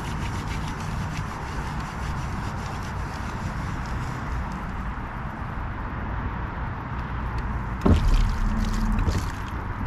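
Steady noise of a boat motor running on the water, with water rushing. About eight seconds in comes a sudden louder knock and low rumble.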